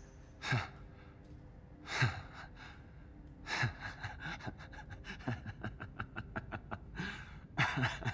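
A man's breathy gasps, then a quick stuttering run of short breaths at about four a second, crying and laughing at once, with two more gasps near the end.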